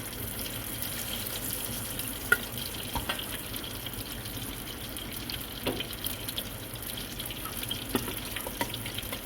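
Marinated prawns deep-frying in hot oil: a steady sizzling hiss with scattered pops and crackles, one sharper pop a little over two seconds in.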